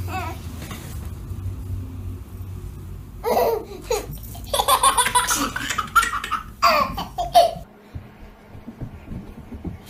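A baby laughing out loud in three bouts, a second or so apart.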